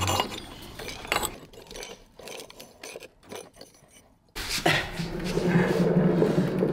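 Ceramic glaze test tiles clicking and scraping against each other as they are sorted by hand in a plastic bin. About four seconds in, this gives way abruptly to the steady rumble of a wheeled dolly rolling across the floor.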